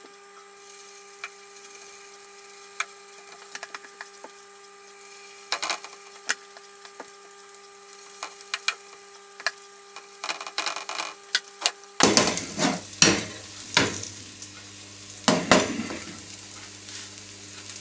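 Courgette fritter batter frying in olive oil in a non-stick pan, a steady light sizzle, with a metal spoon tapping and scraping against the pan as more spoonfuls are dropped in and flattened. The clicks and scrapes come in clusters, busiest in the second half.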